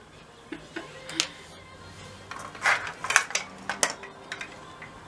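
Small hard plastic objects being handled on a table: a few separate light clicks and clacks.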